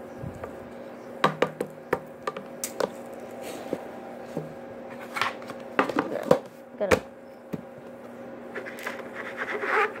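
Spoon scooping loose birdseed, with irregular clicks and scrapes of the spoon against the seed container and the seed rattling, over a steady low hum.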